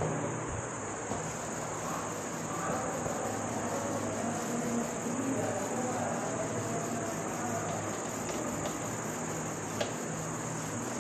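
Steady high-pitched insect trill, unbroken throughout, over a faint low hum.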